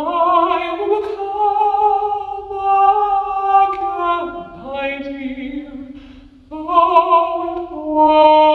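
Unaccompanied singing by a woman's voice run through a pitch-lowering baritone voice filter, which makes her soprano come out in a countertenor range. The notes are long and held, with vibrato, and the line steps down in pitch near the middle.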